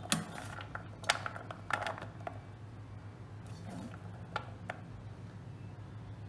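Diced carrot cubes clicking and scraping against a stainless-steel tray as a hand stirs and scoops them, in scattered short clicks. A low steady hum runs underneath.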